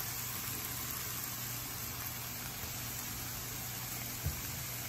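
Broccoli rabe and arugula sautéing in oil in a frying pan: a steady soft sizzle, with a faint low hum under it and one brief soft knock a little over four seconds in.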